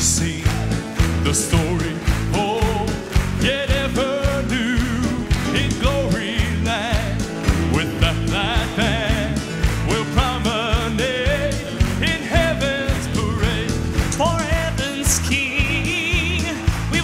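Male Southern gospel quartet singing live with band accompaniment over a steady beat, the lead voice holding notes with vibrato, while the audience claps along in time.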